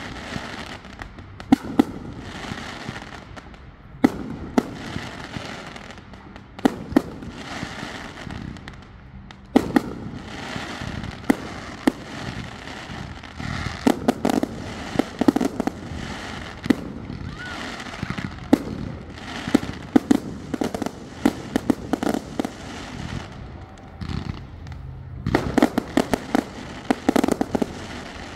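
Aerial fireworks going off: a string of sharp bangs from bursting shells with crackling in between, the bangs coming thickest near the end.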